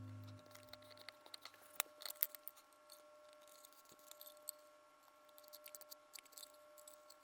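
Faint, scattered light clicks and ticks, as of small parts being handled, over a faint steady high hum; the tail of background music fades out in the first half second.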